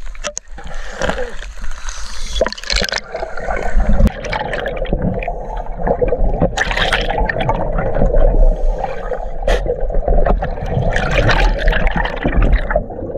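Exhaled air from a scuba regulator bubbling and gurgling underwater, heard through the camera housing as a dense, steady burble. Water splashes and sloshes at the surface during the first two or three seconds.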